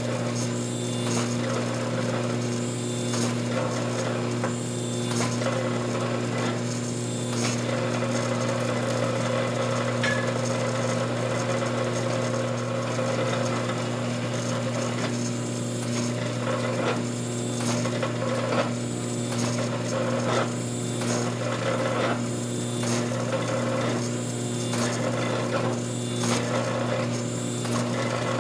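Hydraulic forging press running, its pump motor humming steadily while it squeezes a white-hot wootz steel ingot. Short scraping and knocking noises come about once a second through the second half.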